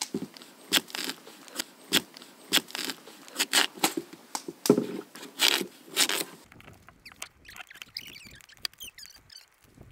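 A small knife scraping the skin off a parboiled sweet potato in short strokes, about two or three a second. For the last few seconds only a few faint ticks.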